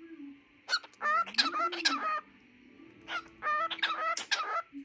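Cockatiel singing: two phrases of high, gliding calls, each about a second and a half long, with a short pause between them.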